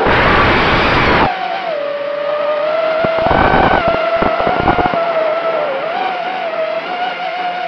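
FPV quadcopter's electric motors and propellers whining as heard from the onboard camera, the pitch wavering up and down with the throttle. A loud rush of noise swamps it for the first second or so, and crackling bursts come and go from about three to five seconds in.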